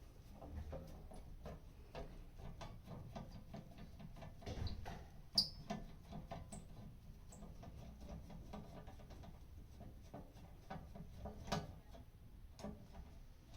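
Faint, irregular small clicks, taps and scratchy scrapes, with one sharper click about five and a half seconds in: handling and movement noise of someone working in a ceiling crawl space.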